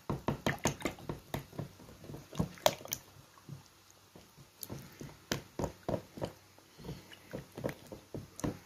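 A fork beating eggs, salted water and oil in a well of flour. It makes quick wet clicks and squelches, about two or three a second, as it is stirred until the salt dissolves.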